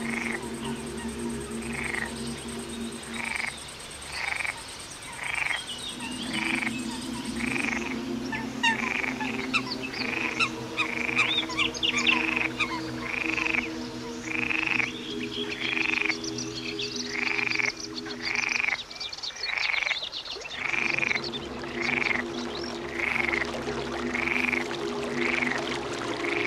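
A short call repeated about once a second, a little unevenly, over background music of slow sustained chords.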